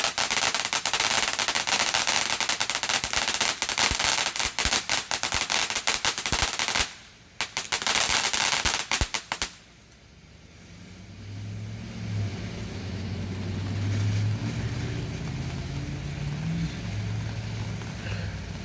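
A consumer firework going off in rapid, dense strings of crackling reports for about seven seconds, a brief break, then two more seconds of crackling before it stops. After that a low steady drone, like an engine, takes over.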